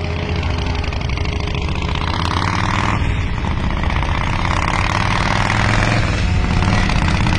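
Chopper motorcycle engine running steadily as the bike rides down the road, a fast even pulse of firing strokes that grows slightly louder toward the end.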